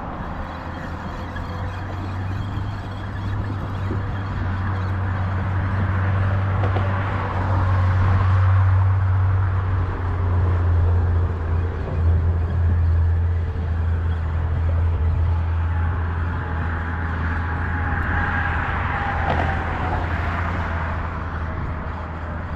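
Road traffic on the bridge: a steady low rumble, with passing vehicles swelling twice, the second with a whine that falls in pitch as it goes by.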